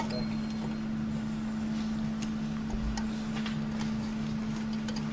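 A few light, scattered metal clicks and taps as a bench-type valve spring compressor is set over a valve on a cylinder head, over a steady low hum.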